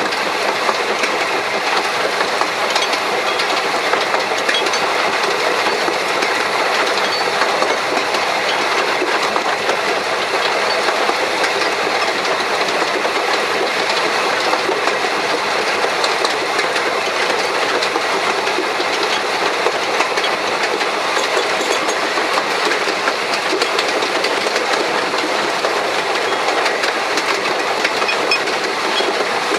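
1883 Hunslet narrow-gauge steam locomotive running steadily along the line, heard close up from its tender: a constant clatter of wheels and motion over the rails.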